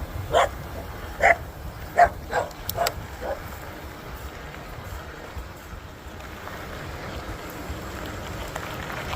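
A dog barking: about six short, sharp barks in quick succession during the first three seconds or so, then it stops.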